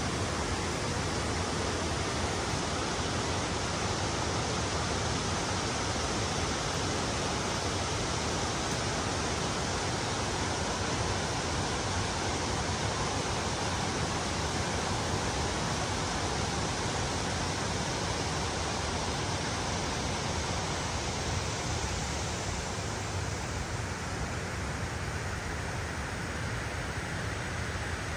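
Steady rush of water pouring from a dam's open floodgates, an even hiss that dulls slightly near the end.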